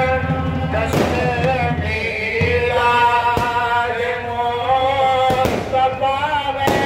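Firecrackers going off in several sharp bangs spread across a few seconds, over loud amplified music with long held notes.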